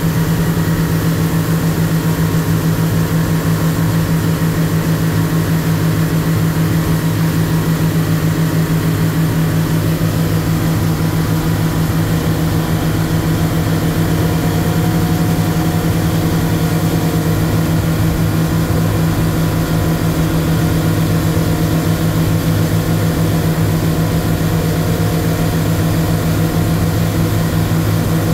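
A boat's engine running steadily while under way, a constant low drone heard from on board.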